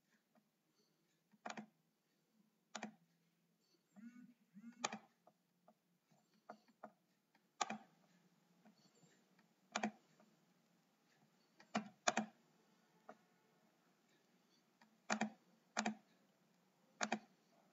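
Clicking at a computer: about a dozen sharp single clicks at uneven gaps of roughly a second, faint, over a low hiss.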